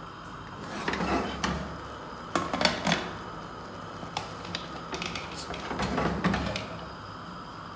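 Aluminium pressure cooker lid being set on the pot and twisted shut: a string of metal clinks, knocks and scrapes, loudest about a third of the way in and again near the end.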